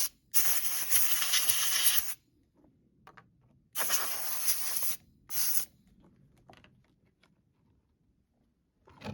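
Compressed-air blow gun blasting air through an opened chainsaw air filter to clean out the dust from the inside: a long hissing burst, then a second burst and a short one. A few faint clicks follow.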